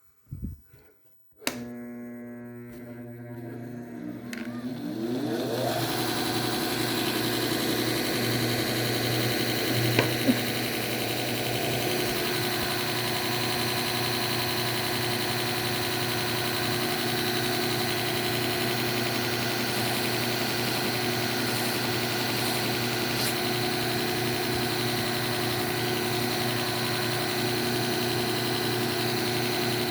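Electric belt sharpener fitted with a leather stropping belt, switched on about a second and a half in: its motor hum rises in pitch over the next few seconds as it comes up to speed, then runs steadily. A couple of short sharp ticks sound about ten seconds in.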